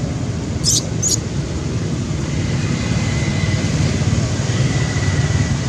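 Steady low rumble of road traffic, with two short high-pitched squeaks about a second in and a thin, steady whine through the second half.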